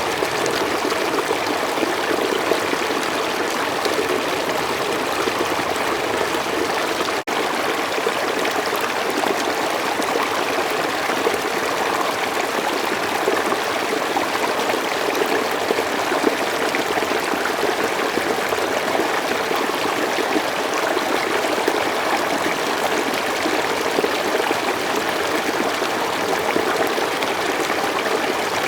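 Stream water running and trickling steadily, with a momentary dropout about seven seconds in.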